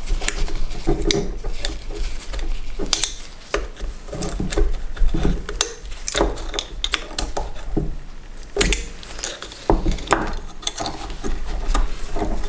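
Irregular metal clicks, taps and scrapes of a screwdriver prying a thin spring-steel anti-vibration clip off a Suzuki GSX600F front brake caliper.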